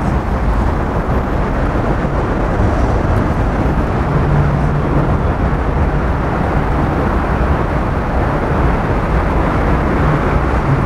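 Steady outdoor city background noise: a constant rumble like distant traffic, with a faint low hum that comes and goes.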